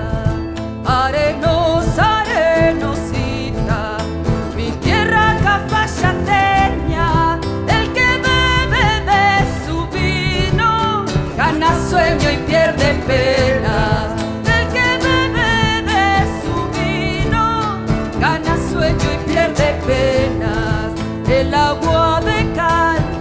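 Live Argentine folk band playing the introduction to a zamba: plucked guitar accompaniment under a wavering, vibrato melody line, before the verse is sung.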